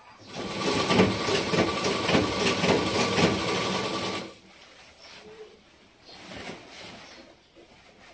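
Motor-driven black tailoring sewing machine stitching in one fast run of about four seconds: a rapid needle clatter over a steady motor whine, then it stops.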